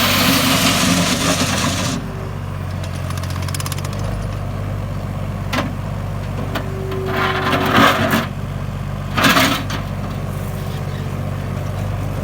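Terex PT-30 compact track loader's 30 hp engine running steadily, with a loud hissing noise for about the first two seconds, two shorter hissing bursts later on, and a few sharp clicks.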